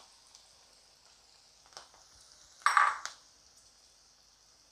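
Grated coconut frying in hot coconut oil in a pan, a faint steady sizzle. There is a short, louder burst of noise about two and a half seconds in.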